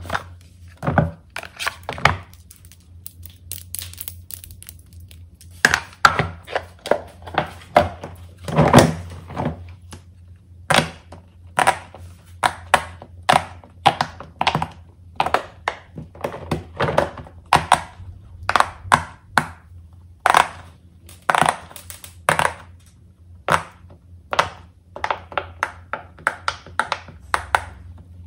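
Bubbles of a silicone pop-it fidget toy being pushed in by fingers: short popping clicks, sparse at first and then coming thick and fast, several a second, from about five seconds in.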